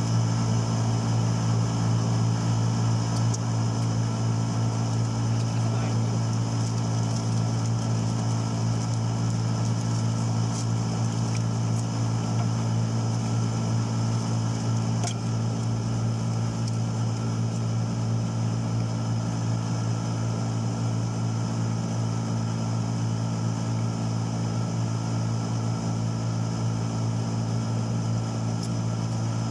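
A motor or engine running steadily, giving a constant low hum with overtones that holds unchanged throughout.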